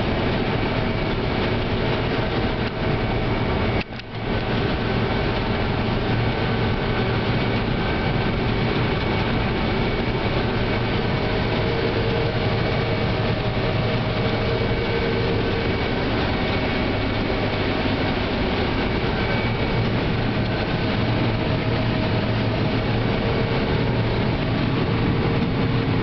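Combine harvester heard from inside its cab while harvesting corn: a steady, loud drone of the engine and threshing machinery, with a few steady whining tones over it. The sound briefly drops out about four seconds in.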